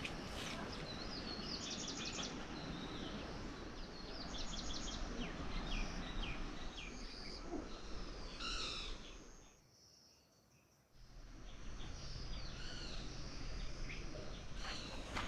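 Birds chirping and singing in short, repeated trills over a steady outdoor background hiss. The sound dips almost to silence for about a second around two-thirds of the way through, then returns.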